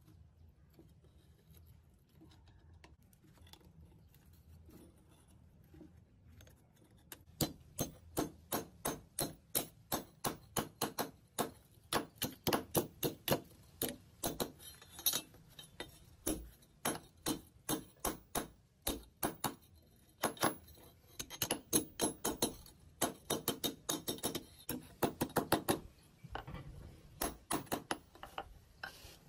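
Hammer tapping steel parts on a steel anvil block, light metallic strikes about three to four a second in runs with short pauses, starting about seven seconds in.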